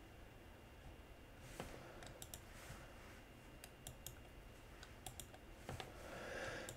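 Faint, irregular clicks of computer keys and buttons being pressed, scattered singly and in small clusters over a few seconds.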